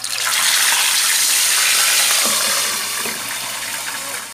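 Whole tilapia frying in hot cooking oil in a pan: a loud, steady sizzle. It softens a little about three seconds in, with the pan covered by a glass lid.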